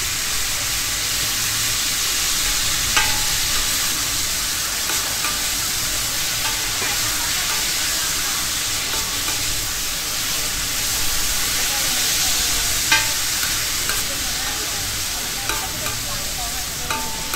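Pad thai rice noodles frying in their sauce on a large flat pan, a steady sizzle as they are stirred and tossed with a metal spatula and ladle. The metal utensils clink sharply against the pan about three seconds in and again near thirteen seconds, with a few lighter taps.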